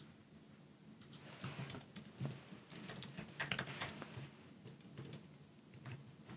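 Faint typing on a computer keyboard: a quick, uneven run of keystrokes that starts about a second in and carries on until near the end.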